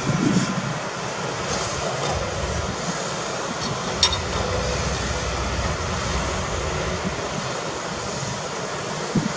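Diesel engines of heavy construction machinery running with a steady rumble. A single sharp click sounds about four seconds in.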